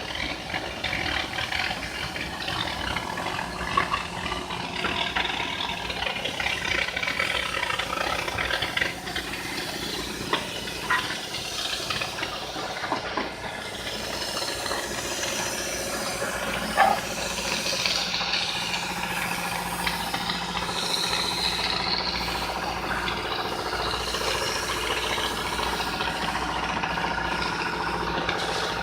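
Plasma cutting torch running on stainless steel: a steady hiss with a few sharp clicks.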